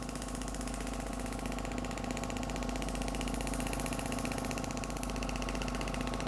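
Shockwave therapy device firing a rapid, even train of ticking pulses while its handpiece works over the lower back, with a steady machine hum underneath.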